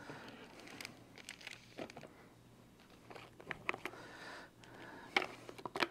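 Faint crinkling of a plastic bag, with scattered light clicks and taps as a plastic pipette and small containers are handled. The sharpest clicks come near the end.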